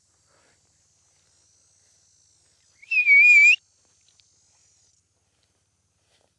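A dog-training whistle blown once, close and loud: a short trilling blast of under a second, about three seconds in.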